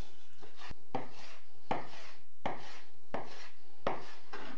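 Knife chopping on a wooden cutting board, a stroke about every three-quarters of a second.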